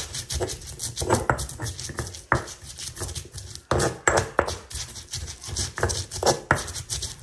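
Stone pestle (tejolote) grinding and crushing seeds, garlic and salt with a little water in a volcanic-stone molcajete: gritty stone-on-stone scraping strokes at an irregular pace.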